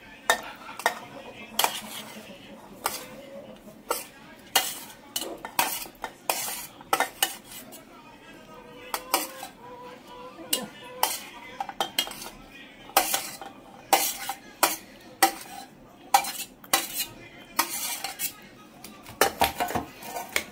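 Metal spoon scraping and clinking against a stainless steel pan and pot as fried chicken is scooped across and stirred into chopped vegetables: irregular sharp metallic clinks, some ringing briefly.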